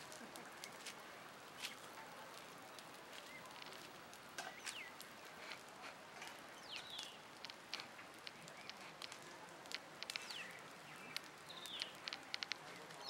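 Dry palm fronds crackling as they catch fire, with sharp, irregular pops that come thicker in the second half. A bird chirps a few short falling calls.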